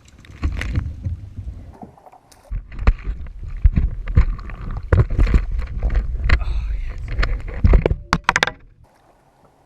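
Irregular knocks and thuds on a fishing kayak's hull over a low rumble of water and movement, stopping shortly before the end.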